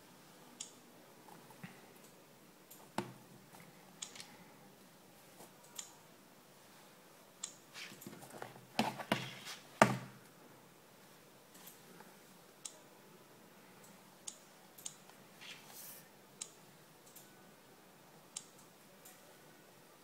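Sparse light clicks and taps of fingers on a tablet's touchscreen and of hands handling the tablet. About eight to ten seconds in comes a louder cluster of knocks and rubbing as the tablet is moved.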